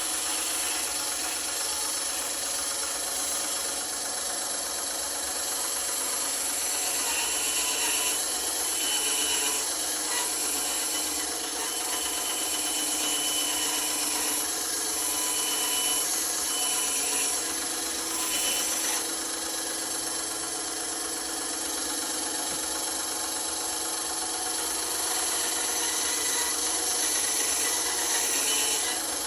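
Power tool running as it works a piece of wood, a steady whir with a rubbing, rasping sound of wood being cut or abraded.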